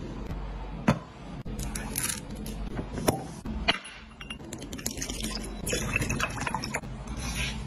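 A few sharp clinks of a glass tumbler. In the second half, a drink is poured from a can into the glass with a steady splashing hiss.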